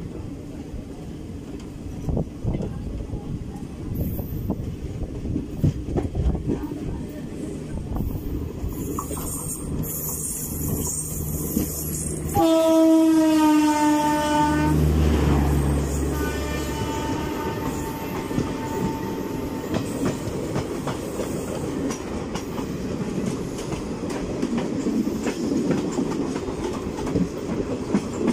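Train wheels clattering and rumbling over the rails, heard from the doorway of a moving passenger train. About twelve seconds in, a train horn sounds for two seconds with a heavy rush of another train running close alongside, and then a fainter horn follows.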